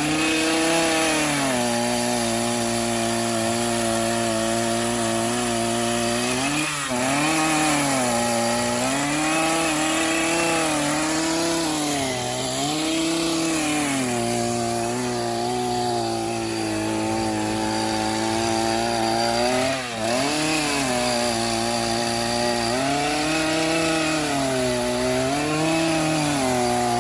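Chainsaw carving into a red elm log, its engine held at high revs, the pitch sagging and recovering every few seconds as the chain bites into the wood and is eased off, with two sharper dips.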